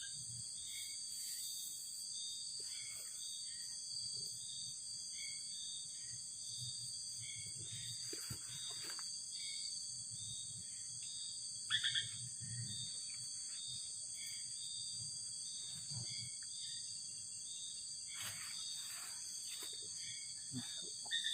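Night insect chorus: a steady, high, shrill drone of crickets. A second caller chirps in a regular beat about once a second over it, and there are a few faint brief rustles.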